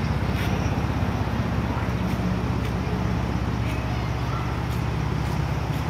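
A 2011 Ford Mustang's 3.7-litre V6 idling steadily, a low, even engine note.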